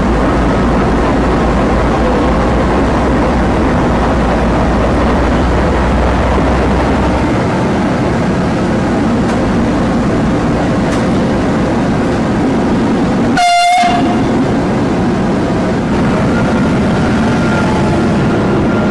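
Large diesel locomotive running loudly as it rolls slowly past at close range, with a short horn blast about two-thirds of the way through.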